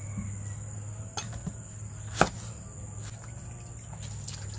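A few sharp knocks of a steel cleaver against a wooden chopping board, the loudest about two seconds in, over a steady high insect drone and a low hum.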